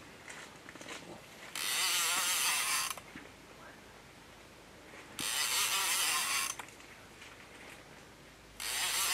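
A fishing reel's freespool clicker ratcheting in three quick buzzing bursts of about a second and a half each, a few seconds apart, as a fish takes line off a live-bait roach rig.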